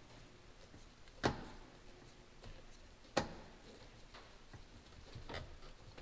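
Hand driver with a T15 Torx bit backing out long licence-plate screws: two sharp clicks about two seconds apart, with fainter ticks between and after them.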